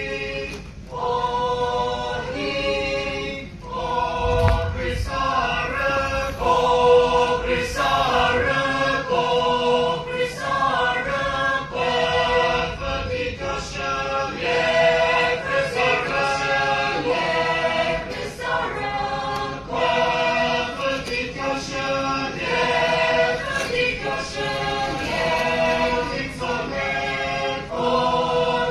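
A mixed group of women and men singing a traditional Naga folk song together as a choir, in short phrases that break and start again about once a second.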